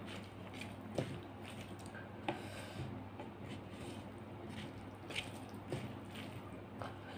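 Fingers squishing and mixing basmati rice with fish curry on a ceramic plate, with a few sharp taps against the plate. A steady low hum runs underneath.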